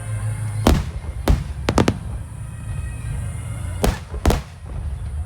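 Aerial fireworks shells bursting: about seven sharp bangs, with a quick run of three a little under two seconds in and two more near the end.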